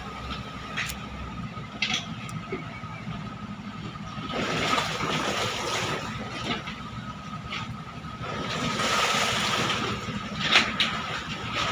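A klotok river boat's engine running steadily, with water rushing past that swells twice.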